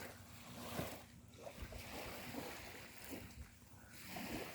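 Sea waves washing on a sandy beach, with wind on the microphone: a steady rushing noise that rises and falls gently.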